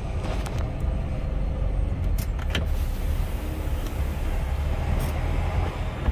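Steady low rumble of a vehicle's engine and tyres heard from inside its cab as it rolls slowly, with a few brief clicks or rustles.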